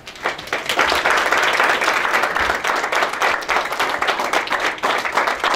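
A small seated audience applauding: many hands clapping in a dense, steady mass that starts just after the opening.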